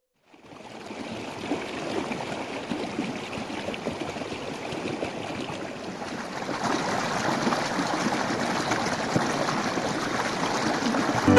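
Rushing water, a steady noise that fades in at the start and grows a little louder about halfway through.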